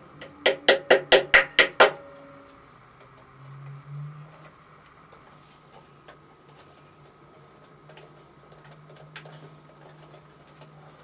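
A rapid series of about eight sharp knocks, roughly five a second, each with a brief ringing tone, followed by a faint steady low hum with a few small ticks.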